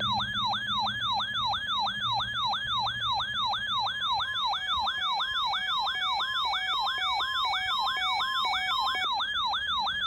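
Weather alert radio sounding its siren-like alarm for a NOAA Weather Radio Required Weekly Test: a sweeping tone that falls in pitch and repeats about three times a second. A second, steadier beeping tone joins about halfway through.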